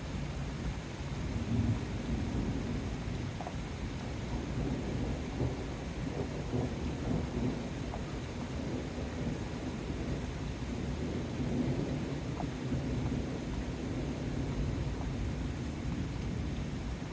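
Thunderstorm: steady rain noise with low rumbles of thunder, swelling briefly about a second and a half in and again near the two-thirds mark.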